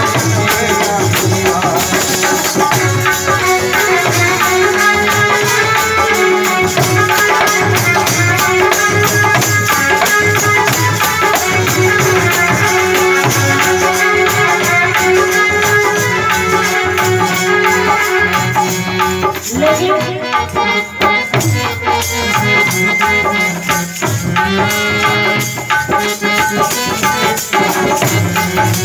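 Instrumental interlude of a Bundeli folk song: harmonium playing the melody over fast, steady rattling hand percussion.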